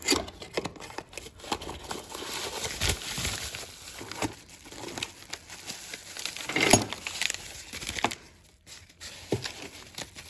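Packaging of a new replacement part being opened by hand: irregular crinkling and tearing with scattered clicks and handling knocks. The loudest knock comes about two-thirds of the way through.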